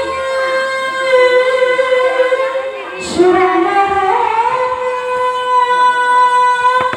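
One voice singing long, drawn-out held notes in two phrases, the second starting about three seconds in.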